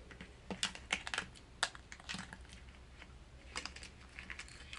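Irregular sharp clicks and clatter of hard plastic crankbaits being handled in a small clear plastic tackle box, bunched in quick clusters.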